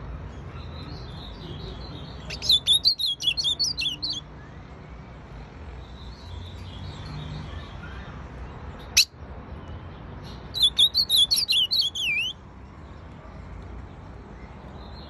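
Female ultramarine grosbeak (azulão) singing two short phrases of quick, high warbled notes, each lasting about two seconds, the first about two seconds in and the second about ten seconds in. A single sharp click falls between the two phrases.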